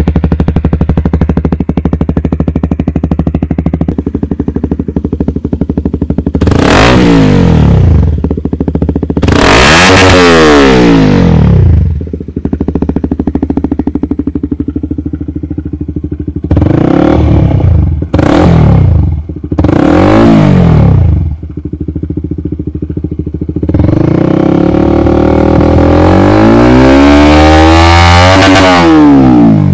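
A combustion engine idling and being revved up and back down six times, three quick revs close together in the middle and a long rev held for several seconds near the end.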